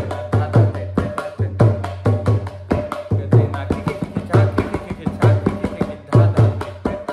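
Mridanga (khol) played with both hands in keherwa taal: a quick run of sharp strokes on the small head, ringing with one steady tone, mixed with deep bass strokes on the large head.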